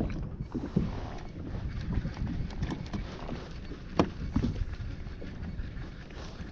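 Wind rumbling on the microphone and small waves lapping against a kayak's hull, with a few sharp knocks, the loudest about four seconds in, as the fishing rod is handled.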